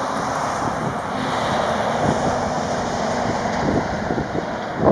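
Airbus A340-300's four CFM56 jet engines rumbling as the airliner rolls out on the runway after touchdown, getting louder about a second in, mixed with wind buffeting the microphone. A sharp knock comes at the very end.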